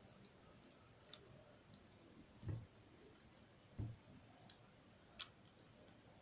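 Faint small clicks and taps, with two soft low thuds about two and a half and four seconds in and a sharper click near the end: small tools and smartphone parts being handled during a battery replacement.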